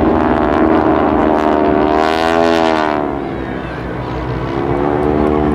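Radial engines of a formation of North American SNJ/T-6 Texan trainers droning as they pass low, the pitch sliding two to three seconds in, then fading somewhat.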